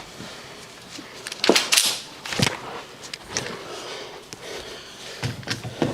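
Several short, sharp knocks and clatters. One cluster falls around two seconds in and another near the end, with quieter rustling between them.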